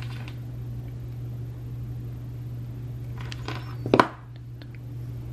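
Handling noise of crafting at a table: light rustling and small clicks, then a sharp, loud double click about four seconds in, over a steady low hum.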